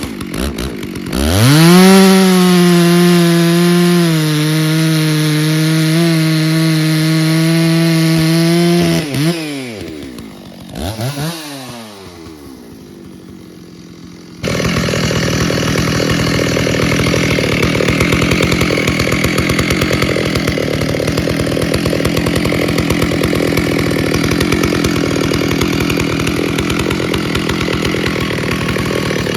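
Stihl 064 two-stroke chainsaw being revved: a few quick throttle blips, then held wide open with a steady high-pitched whine for several seconds, then dropped back to idle with more blips. About halfway in, the sound changes suddenly to a rough, steady running under load as the chain cuts into wood.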